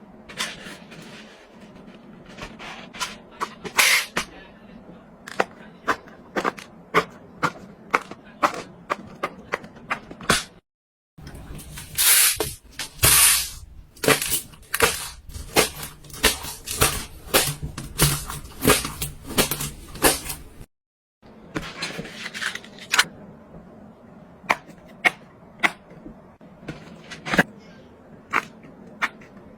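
Silicone pop-it fidget toy bubbles being pressed, a run of sharp popping clicks at an uneven pace of roughly one to three a second. The sound breaks off to silence twice and restarts, and the middle stretch is louder with denser pops.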